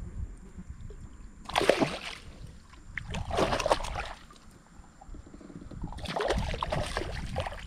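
Water splashing and weeds rustling as a wire fish keepnet is hauled by its rope through floating water plants beside a kayak. It comes in three separate bursts, the first about a second and a half in and the last near the end.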